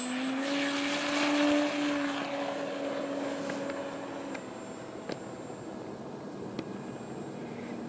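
Electric motor and propeller of a Carbon-Z T-28 scale RC model plane: a steady drone, loudest about a second or two in, then fading as the plane climbs away.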